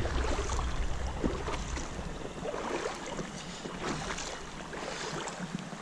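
Footsteps wading and splashing irregularly through a shallow, rocky-bottomed creek, with the water moving around them. A low rumble underneath fades out about two seconds in.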